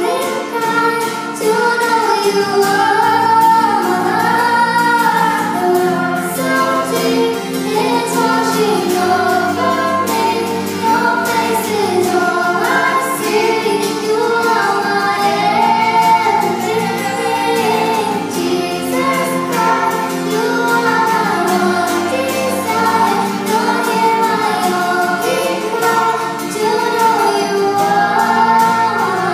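A young girl singing a worship song, accompanied by guitar and bass guitar.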